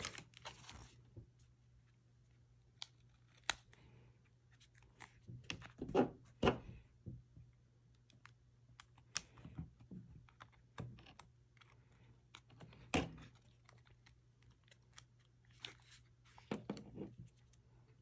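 Scattered faint clicks, taps and scrapes of a laptop battery and its adhesive-backed cable being handled and worked loose with a plastic pry tool, with a few sharper clicks among them.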